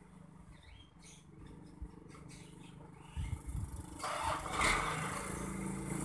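A diesel engine idling with a steady low hum. A motorcycle passes close by from about four seconds in and is louder than the engine.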